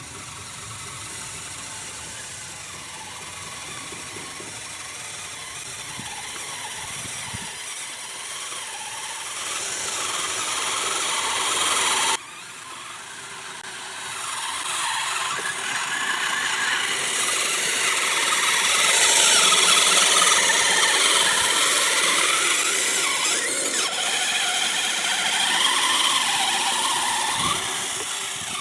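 Kyosho Blizzard RC tracked snow vehicle running on its electric motor: a steady whine with squealing and ratcheting from the gears and tracks. It gets louder over several seconds, drops suddenly about twelve seconds in, then builds again and stays loud.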